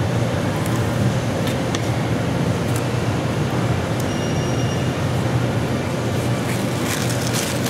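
Steady low mechanical drone of ventilation machinery, with a few faint ticks of a fillet knife on a plastic cutting board as a rockfish fillet is trimmed.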